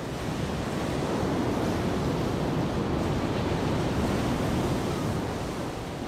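Heavy ocean surf breaking and washing over rocks: a continuous rush of churning water that swells slightly about a second in and eases off near the end.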